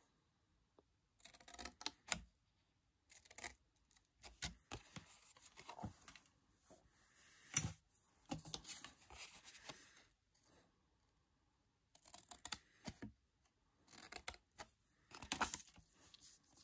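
Faint snipping of small craft scissors cutting cardstock, in several short runs of cuts with pauses between.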